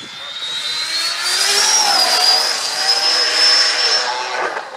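A fast motor vehicle's high-pitched whine over a rush of noise. The whine climbs steadily in pitch, then levels off, while the noise swells to its loudest in the middle and fades near the end, like a vehicle accelerating hard and speeding past.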